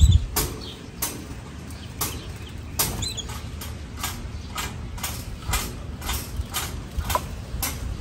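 Canaries at a fountain birdbath: short sharp ticks about once or twice a second, with a few faint high chirps, over a low rumble.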